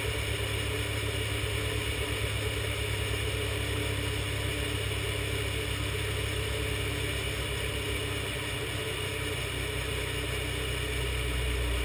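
Classic Mini's A-series four-cylinder engine idling steadily, with its low rumble growing slightly near the end.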